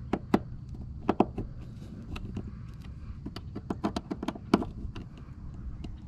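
Hand screwdriver turning a screw into diamond-plate sheet metal to fasten an AC port plug: a run of sharp, irregular clicks and taps.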